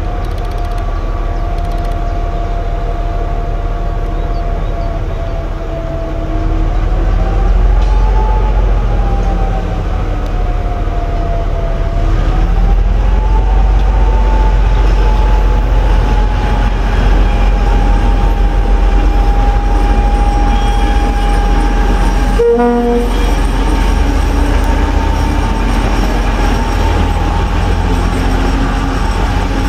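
Class T679.1 'Sergej' diesel locomotive with its two-stroke V12 diesel engine running under load as it hauls a passenger train, a loud, deep, steady rumble. Over it a whining tone rises and falls in pitch, climbing as the engine gets louder about 7 seconds in and again about 12 seconds in.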